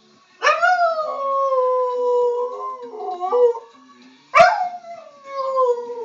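Siberian husky howling: one long howl starting about half a second in that slides slowly down in pitch and wavers near the middle, then a second howl about four seconds in that starts sharply and slides down again.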